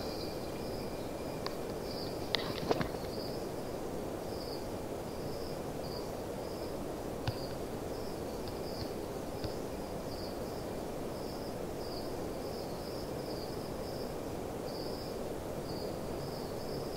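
Night-time ambience of chirping insects: short high chirps repeating unevenly, about one or two a second, over a steady background hiss, with a few faint clicks in the first few seconds.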